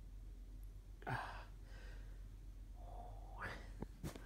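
A man's sharp, gasp-like breath about a second in as he pushes a syringe needle into his stomach, then a short hum and another breath, with two clicks near the end.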